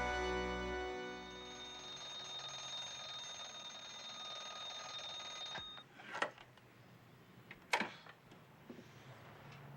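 The last chord of the music fades, and an alarm clock rings steadily until it is cut off suddenly about five and a half seconds in. A few sharp knocks follow.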